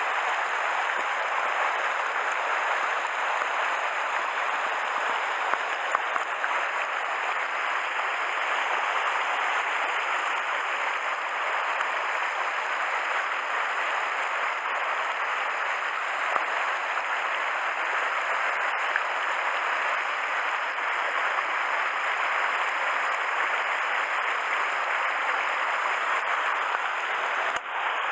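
Mountain stream rushing: a steady, even hiss of flowing water.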